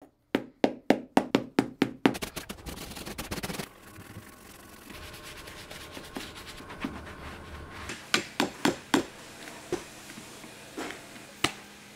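Hand work on a worn leather work boot during a teardown: a quick run of about eight sharp knocks, a brush scrubbing over the leather for a few seconds, then four more sharp knocks and a few scattered ones.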